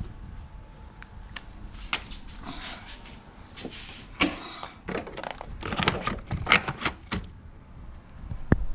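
Irregular clicks and knocks of hard objects being handled, mixed with short scraping and rustling noises, and a sharper knock near the end.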